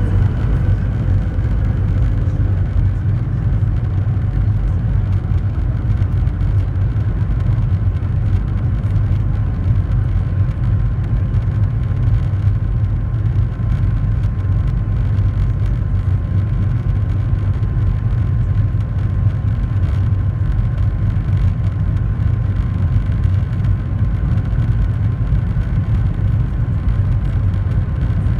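Steady low rumble heard inside the cabin of a Boeing 737-700 on the ground, from its CFM56-7 engines and the rolling aircraft, with a faint steady whine above it.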